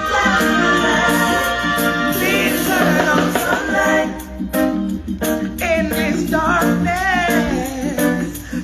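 Live reggae band playing, with a woman's voice singing long, wavering lines without clear words over it; the backing thins out briefly about four seconds in.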